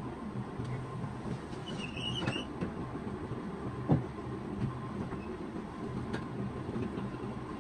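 Potter's wheel turning with a steady rumble and faint hum, with a sharp click about four seconds in.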